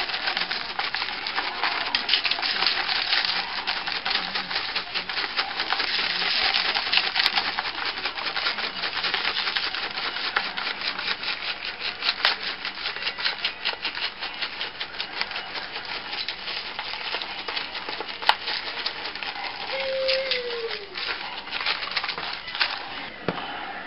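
Dry rub being shaken from a spice shaker onto slabs of baby back ribs on aluminium foil: a dense, continuous rattle of rapid ticks, with a few sharper clicks and a brief falling squeak near the end.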